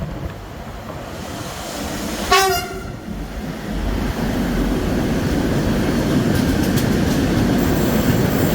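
A train sounds one short horn blast about two seconds in, a driver's greeting to the trackside onlooker. It then passes close by, its running noise growing loud and holding steady.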